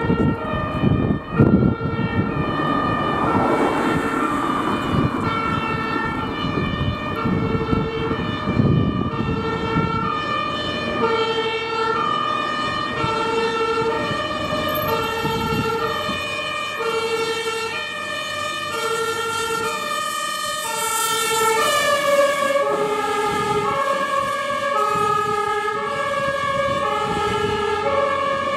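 Two-tone German fire-engine siren (Martinshorn) alternating between a low and a high note in a steady cycle, over the engine and tyre noise of a heavy fire truck, loudest in the first few seconds. About three-quarters of the way through, the siren's notes drop lower as the truck goes by.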